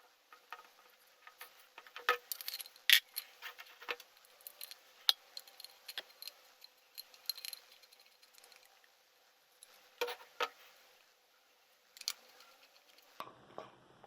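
Irregular sharp clicks and light metallic clinks of small tools and parts being handled, densest in the first half, with a few more taps later on.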